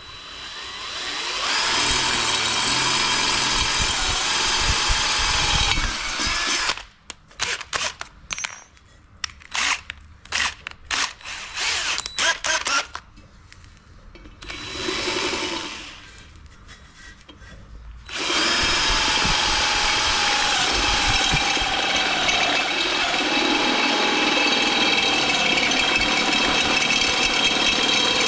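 DeWalt 18V XR cordless drill boring through the steel wall of a gas bottle: a long run of steady drilling with a whine, then a stretch of short stop-start bursts, then another long run of drilling from about two-thirds of the way in.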